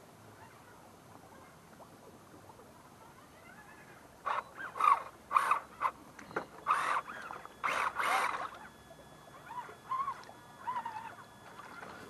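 Radio-controlled scale crawler trucks working through mud and water. About four seconds in comes a run of short throttle bursts, each with a motor whine that rises and falls, over splashing and churning. A few fainter whines follow near the end.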